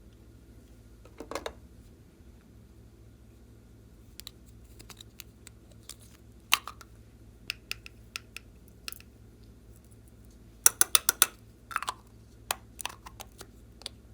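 Slime being squeezed and poked by hand, giving scattered sharp clicks and pops. Near the end comes a quick run of about six pops.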